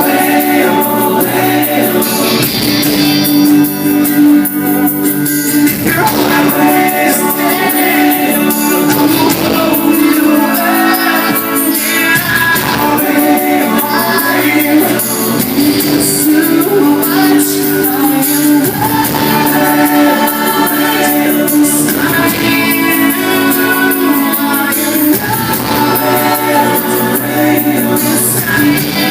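Live pop-rock band playing loudly, with singing over the band.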